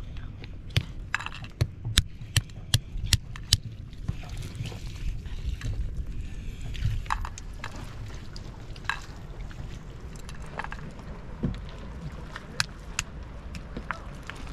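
Walnuts being cracked with a hand-held stone against a flat stone: a quick run of about eight sharp cracks in the first few seconds, then scattered cracks and clicks of shell, over a low steady rumble.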